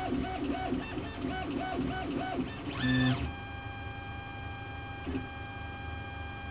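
VzBoT 3D printer's stepper motors whining through a rapid series of short toolhead moves, about three a second, then a louder fast move whose pitch rises and falls about three seconds in. After that the motors hum steadily, with a faint click a little after five seconds.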